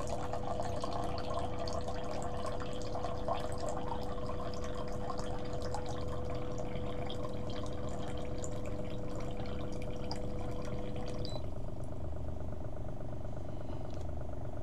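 Waterfirst countertop reverse osmosis water purifier dispensing a thin stream of filtered water into a glass, the water splashing as the glass fills, over a steady hum from the unit. The stream and the hum stop together about eleven seconds in, once the selected 10-ounce dose has run out.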